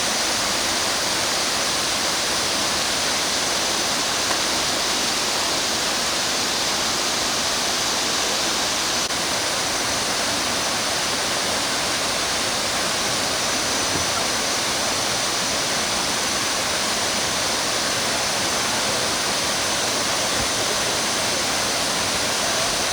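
Kuang Si waterfall cascades pouring into pools: a steady, even rush of falling water that holds one level throughout.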